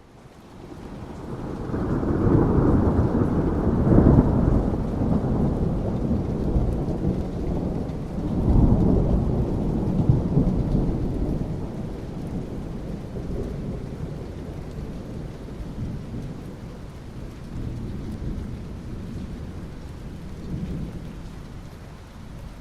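Rain falling steadily with rolling thunder. One rumble builds over the first few seconds and peaks about four seconds in, and a second breaks about eight seconds in. Both fade slowly into the rain.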